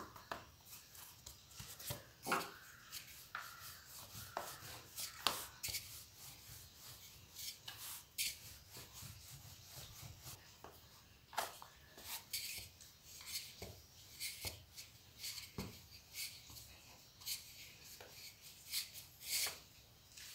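Rolling pin rolling out wheat-flour dough on a stainless steel plate: faint rubbing with scattered light knocks and taps as the pin and plate shift.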